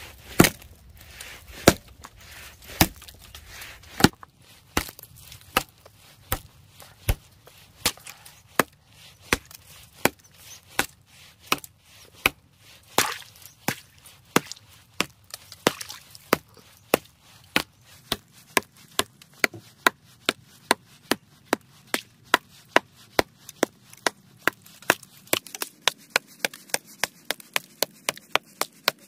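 A hammer striking thick ice again and again, chipping and cracking it: a steady run of sharp hits. They come about two a second at first and close to three a second in the second half. The ice is frozen solid and slow to break.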